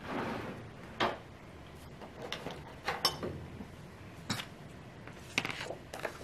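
Paper planner pages and supplies being handled: a soft brush of a hand across paper at the start, then scattered light clicks, taps and paper rustles, ending with a page being turned in the ring binder.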